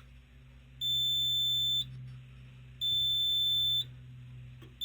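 Smoke alarm set off by smoke, beeping: high-pitched beeps about a second long, one every two seconds, with the last beep cut short near the end as the alarm is silenced. A low steady hum runs underneath.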